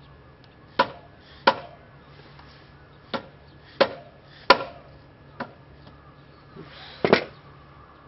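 Red soft-faced mallet tapping a motorcycle front axle through the fork and wheel hub: about eight sharp knocks at uneven intervals, the last two close together.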